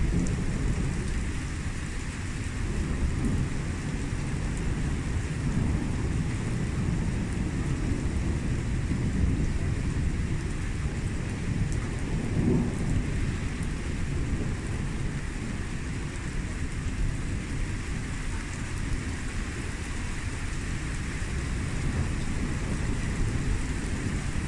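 Thunderstorm: steady rain falling with low thunder rumbling throughout, and the thunder swelling briefly about halfway through.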